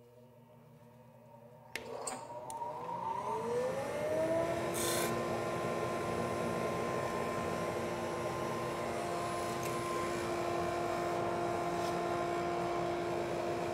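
Supermax 19-38 drum sander switched on about two seconds in, its whine rising as the drum and conveyor come up to speed, then running steadily. A brief hiss about five seconds in.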